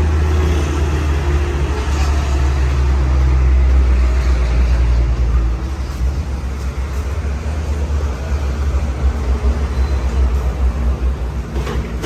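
Steady low rumble of an engine running, with a sharp clack near the end as a stack of plastic slatted floor panels is set down.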